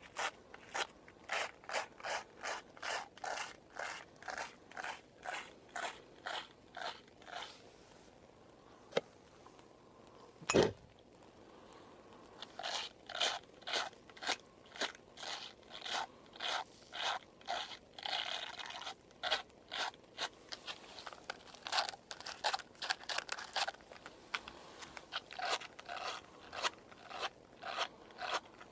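Scissors snipping hair close to the microphone, about two crisp snips a second. They stop for a few seconds in the middle, broken only by a couple of single clicks, then resume.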